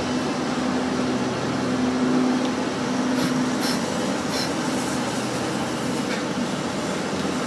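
Steady hum of a room air conditioner. About three to four and a half seconds in come three short, high scratches from a match struck against a multi-tool's glued-on match striker.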